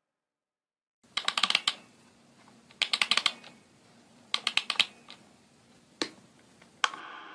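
Rapid clicking like typing on a computer keyboard, in three quick bursts about a second and a half apart, then two single clicks, used as a sound effect in a dance track. A sustained tone starts near the end.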